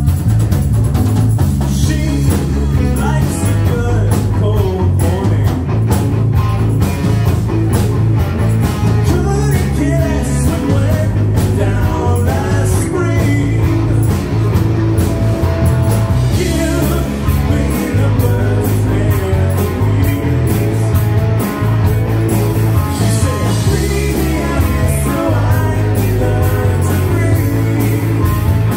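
Live rock band playing: electric guitars, drum kit with cymbals and a heavy bass line, with vocals sung into microphones over the band.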